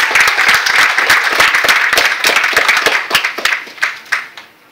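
Church congregation applauding: dense clapping that thins to a few last scattered claps about three to four seconds in, then stops.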